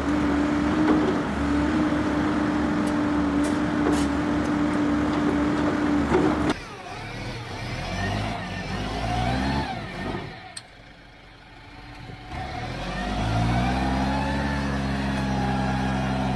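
Motor vehicle engines across a series of edited clips. The first engine runs steadily with a steady hum. About six and a half seconds in the sound cuts off abruptly, followed by engines revving with rising pitch. After a quieter dip, an engine revs up and settles into a steady run.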